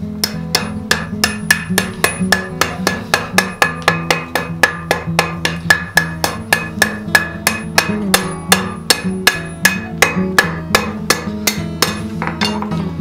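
Blacksmith's hammer striking hot steel on an anvil in a steady rapid rhythm, about four blows a second, each with a bright ring; the hammering stops near the end. Background guitar music plays underneath.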